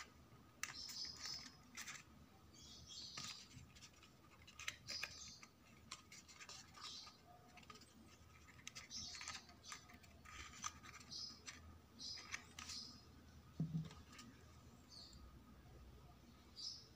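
Faint rustling, scraping and light clicks of printed card paper as a papercraft ship hull is handled and pressed together, coming irregularly every second or so.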